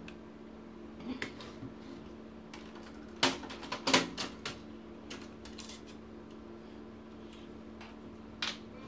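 Sharp plastic clicks and knocks as the side cover of an HP Color LaserJet printer is unclipped, pulled away and set down, with the loudest cluster of clicks about three to four seconds in. A steady low hum runs underneath.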